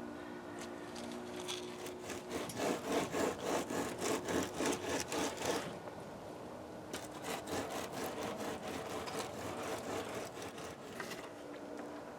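Rhythmic scraping or rubbing strokes, about three a second, in a louder run and then a fainter one, over a faint steady hum.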